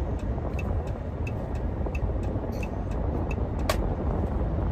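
A vehicle driving in traffic, heard from inside the cab as a steady low road rumble, with a turn-signal indicator ticking about three times a second. A single sharper click comes about three and a half seconds in.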